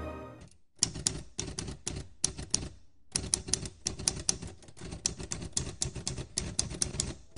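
Typewriter keystrokes, a typing sound effect: a quick run of key strikes, a brief pause, then a longer run at about five strikes a second. Background music fades out just before the typing starts.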